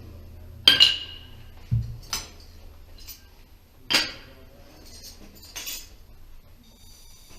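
Hard objects knocking together: four sharp, ringing clinks spaced about a second and a half apart, with one dull low thud between the first two.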